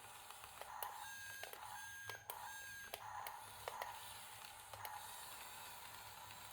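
Small geared electric motors of a YiGong toy RC bulldozer whining faintly in several short swells, with sharp clicks from the drive in between, as the machine strains in sand and struggles under its own weight.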